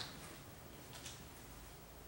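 Quiet room with faint footsteps on a debris-strewn floor: a few soft ticks and scuffs.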